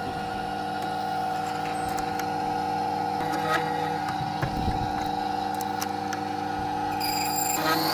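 Wenxing vertical key-cutting machine running: a steady motor whine from its spinning cutter, with a few light clicks as a key is worked in the clamp.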